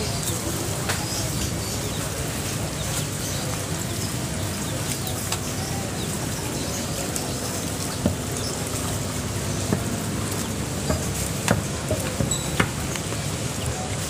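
Steady market ambience around aquarium fish stalls, with water trickling into the tanks and faint background chatter. A few sharp clicks or taps stand out in the second half.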